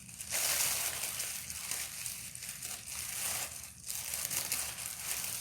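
Packaging rustling and crinkling as items are handled and unpacked from a gift box, a continuous crackly rustle with two brief pauses.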